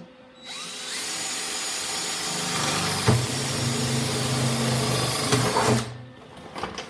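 Hand-held power drill spinning up and drilling through the sheet steel of a VW Beetle's inner wheel well, making a hole for a pop rivet. It runs for about five seconds, with a deeper hum as the bit cuts and a knock near the middle, then stops.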